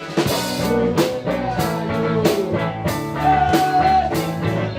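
Rock music: a drum kit keeps a steady beat under electric guitar, with a lead line of held, bending notes.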